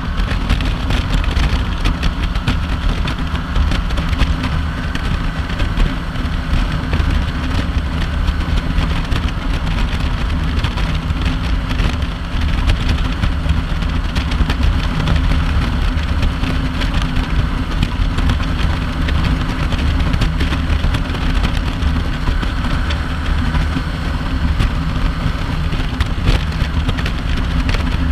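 Kawasaki Vulcan 900 LT's V-twin engine droning at a steady highway cruise, mixed with heavy wind noise on the bike-mounted microphone.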